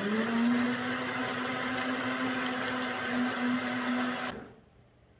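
Cosori countertop blender running at speed, blending walnuts, hemp seeds and water into walnut milk: a steady motor hum that cuts off about four seconds in.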